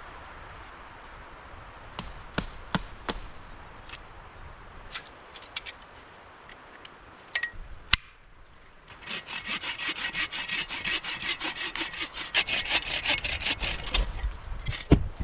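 Hand saw cutting through wood in fast, even back-and-forth strokes, starting about nine seconds in. Before that there are scattered light knocks and snaps, like wood being handled, over a steady background hiss.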